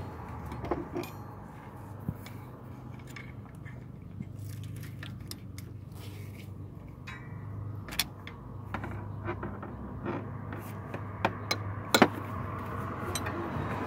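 Scattered metallic clicks, clinks and scrapes of hand tools and parts being worked in a car engine bay during alternator removal, with two louder clinks about eight and twelve seconds in, over a steady low hum.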